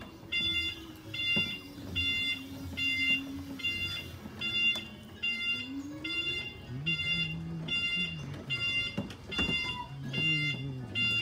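Regular electronic beeping: short, high, even beeps, about three every two seconds, with lower wavering tones underneath.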